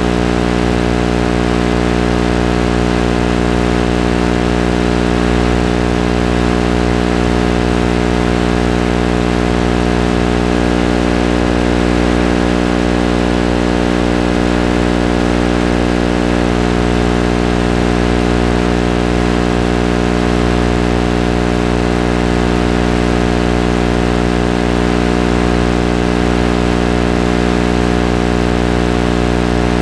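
Steady electrical hum-buzz with many evenly spaced overtones, unchanging throughout. It is the kind of drone an FPV video link records when the car sits still and no real microphone sound comes through.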